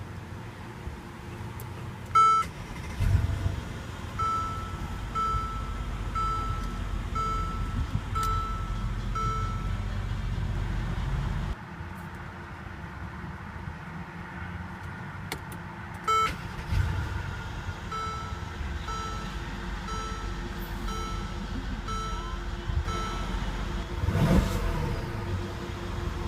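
Car warning chime from the 2014 Mercedes-Benz SL550: a click, then a high beep repeating about once a second for several seconds, heard twice, over a low rumble that cuts off suddenly partway through. Near the end a loud surge as the twin-turbo 4.7-litre V8 starts.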